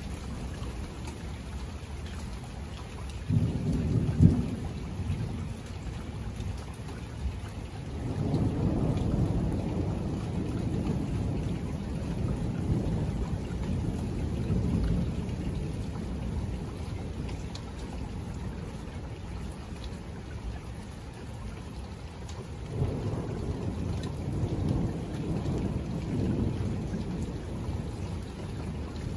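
Steady rain on surfaces with rolling thunder. A short, loud burst of thunder comes about three seconds in, then long low rumbles from about eight seconds in and again near the end.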